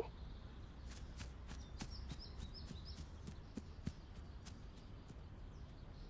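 Faint outdoor ambience with a few high bird chirps and a run of light, quick footsteps, about four a second, that stop about five seconds in.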